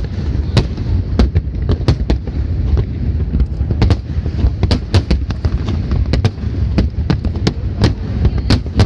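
Fireworks display: aerial shells bursting in a rapid, uneven string of bangs, several a second, over a continuous low rumble.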